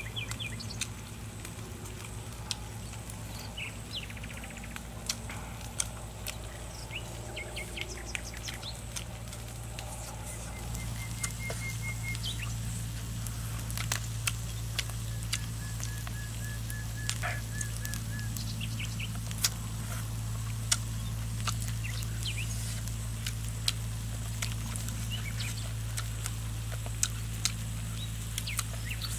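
Birds chirping in the background, with a few short rapid trills, over a steady low hum; sharp small clicks are scattered throughout.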